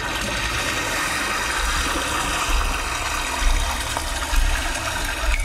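Rushing, gushing water played as a sound effect in a projection show's soundtrack, with deep irregular low booms underneath.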